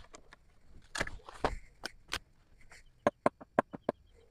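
Dry branches and dead palm fronds being pulled and broken: separate sharp snaps and knocks of dry wood with some rustling, then a quick run of about six snaps just after three seconds in.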